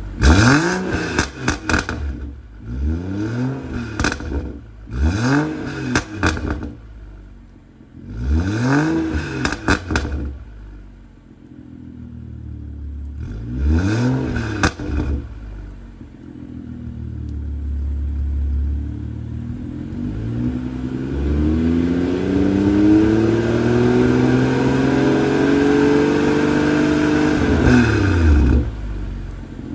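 BMW X5 F15's turbocharged N55 inline-six, on a stage 2 tune with a catless downpipe and stock muffler, heard at the tailpipes. It is blipped about six times to 2,000–3,000 rpm, with crackles as each rev drops, then idles. It then makes one long, slow climb to about 3,000 rpm, which falls away sharply near the end.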